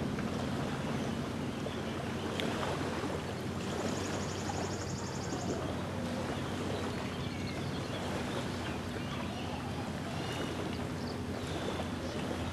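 Small lake waves lapping at the shore, under the steady drone of a distant motorboat engine, with a few faint bird chirps.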